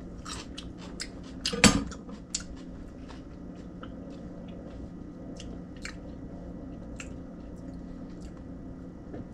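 A kitchen knife set down with one sharp clack on a wooden cutting board about two seconds in, then the small, irregular crunches of a piece of raw jalapeño pepper being chewed, over a steady low hum.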